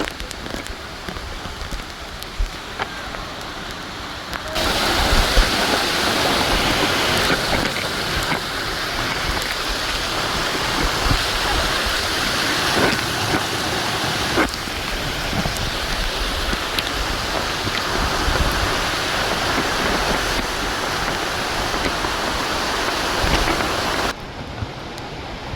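Steady rush of falling water from the Sewu waterfall. It gets much louder suddenly about four seconds in and drops back near the end.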